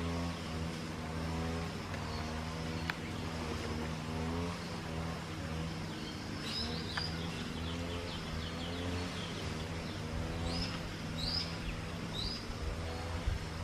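A steady, low engine-like drone runs throughout, with short high bird chirps now and then, several of them in the second half.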